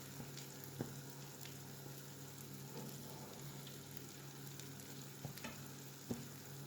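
Tuna and egg omelette mixture sizzling faintly as it fries in oil in a frying pan, with a few light clicks.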